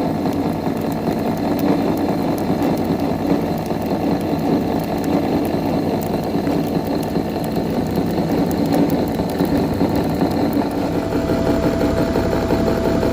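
Portable three-axis milling machine (Mirage MRY) running with a steady mechanical hum. A higher steady tone joins about eleven seconds in.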